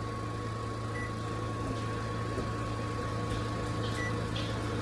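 Microwave oven running: a steady low hum with a faint steady whine above it.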